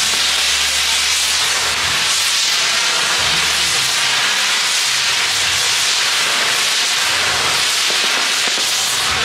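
Castillo-style fireworks frame burning, its spark fountains and spinning pinwheels giving a steady, loud hiss.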